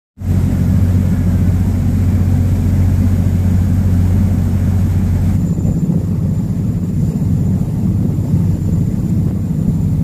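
Boat engine running with a steady low rumble, heard on board; the low hum eases about five seconds in.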